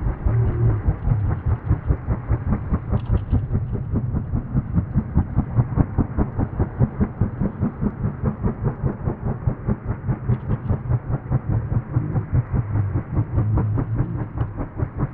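WAH-64D Apache attack helicopter in flight, its rotor blades beating in a fast, even pulse over a low engine rumble.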